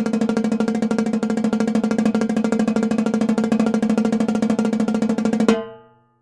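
Tycoon Percussion Gun Powder timbales played in a fast, even roll at one pitch, ending about five and a half seconds in with an accented hit that rings out and fades away.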